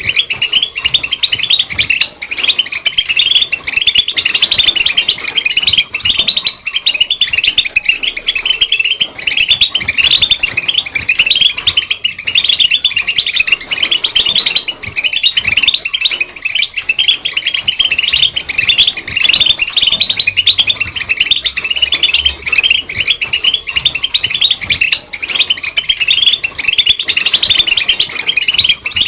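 European goldfinch singing: a continuous, rapid, high-pitched twittering song of chirps and trills, loud and without pauses.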